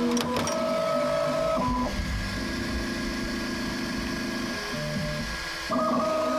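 Bambu Lab X1 Carbon 3D printer running: its stepper motors whine in steady tones that jump from pitch to pitch every half second or so as the print head moves fast, over a steady hiss, with a click near the start.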